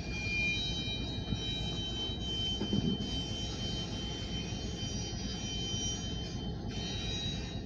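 Slow-moving freight train of grain hopper cars rolling past with a low rumble and a steady high-pitched whine of several tones at once, which stops shortly before the end. A louder low thump comes about three seconds in.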